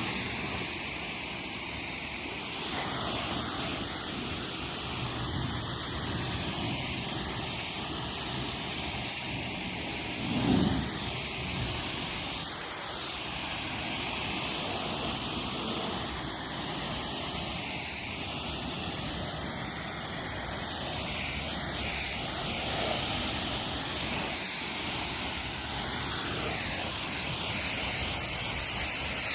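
Active 2.0 electric pressure washer running steadily, its 40-degree nozzle spraying water onto a car to rinse off snow foam soap, with one brief louder swell about ten seconds in.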